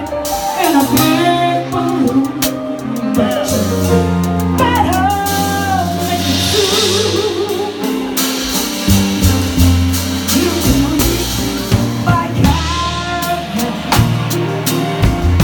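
Live band music: a singer's voice sliding through sustained phrases over keyboard and drums.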